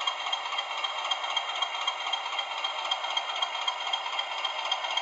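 The engine sound of a Bachmann Class 20 model's DCC sound decoder: the Class 20's English Electric diesel running steadily, with an even, fast pulsing clatter. It comes out thin and tinny through the model's small speaker, with no deep bass.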